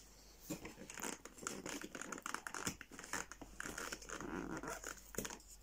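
Packaging from a chocolate advent calendar crinkling and rustling as it is handled, in quick irregular crackles that begin about half a second in and stop shortly before the end.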